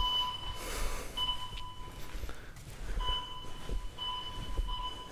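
A steady high electronic tone that switches on and off several times, each stretch lasting about half a second to a second, over low irregular thuds of footsteps and camera handling.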